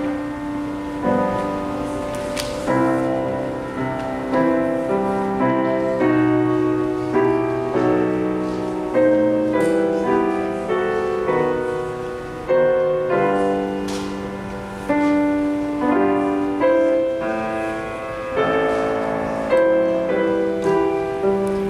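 Solo piano playing slow music, a new chord struck about once a second and left to ring.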